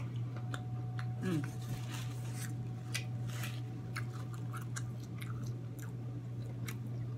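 Close-up chewing of a mouthful of seafood-boil food: a run of short, wet mouth clicks and smacks over a steady low hum, with a brief vocal sound about a second in.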